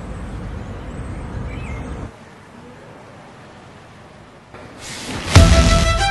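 Low, even rumble of ambient noise with no clear single source, dropping to a quieter hiss about two seconds in. Near the end a rising swoosh leads into loud background music.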